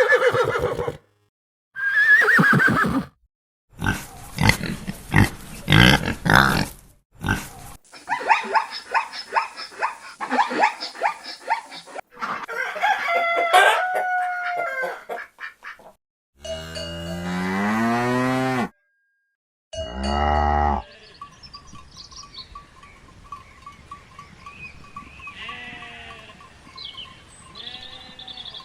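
Farm animals calling in a series of short clips cut one after another, with abrupt silent gaps between them. The last several seconds are quieter, with faint calls over a low background.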